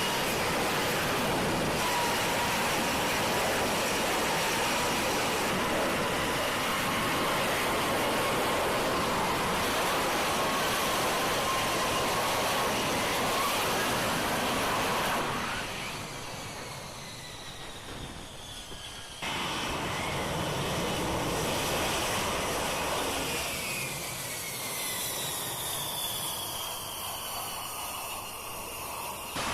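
F-35B Lightning II jet noise from its single Pratt & Whitney F135 engine: a loud rush with a steady whine, dropping in level about halfway through. After an abrupt cut the noise returns with whines that fall in pitch near the end.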